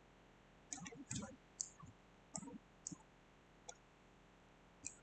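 Computer mouse clicking: about eight short, sharp clicks at irregular spacing over a quiet room.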